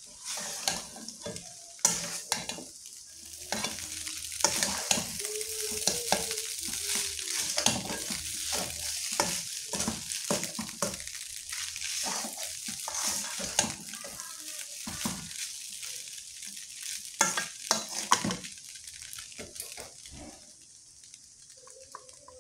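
Noodles and vegetables sizzling in a hot wok while a metal spatula stirs and tosses them, with frequent clacks and scrapes of the spatula on the pan. The sizzle dies down over the last few seconds.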